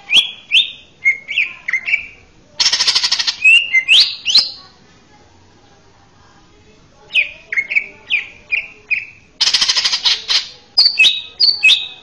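Male green leafbird (cucak ijo) singing: runs of short, clear, slurred whistles, each run broken by a harsh, rapid rattle about a second long, twice. The song pauses for about two seconds midway.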